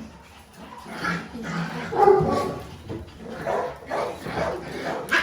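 Puppies barking and yipping in a string of short, high calls, loudest about two seconds in.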